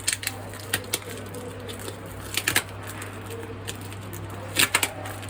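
A few scattered knocks and taps from the keyboard's packaging being handled, the loudest just before the end, over a steady low hum.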